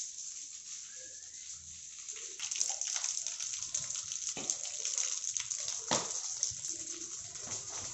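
Running water, a steady splashy hiss with crackling, growing louder about two and a half seconds in.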